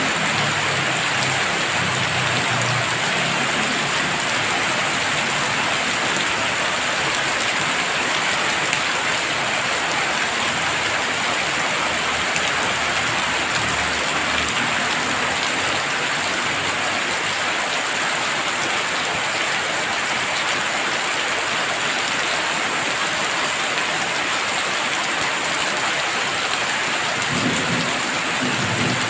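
Heavy rain falling steadily, a dense even hiss of drops, with a low rumble in the first few seconds and again near the end.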